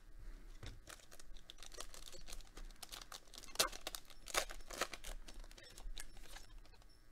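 Foil wrapper of a Weiss Schwarz booster pack being crinkled and torn open by hand: a run of sharp crackles, loudest a little past the middle.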